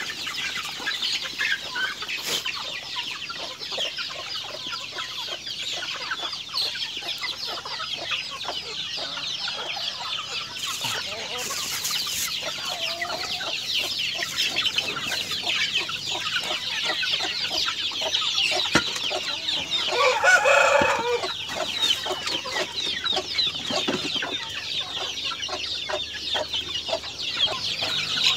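A flock of chickens with many young birds: dense, continuous high peeping and clucking. A rooster crows once about two-thirds of the way through.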